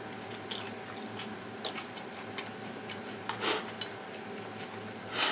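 A person chewing food close to the microphone, with small scattered mouth clicks and light taps, and a sharper click near the end, over a faint steady hum.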